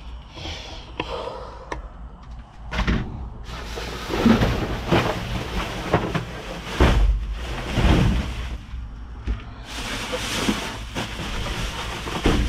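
Plastic trash bags and food packaging rustling and crinkling as they are handled and shifted in a dumpster, with several dull knocks and thumps.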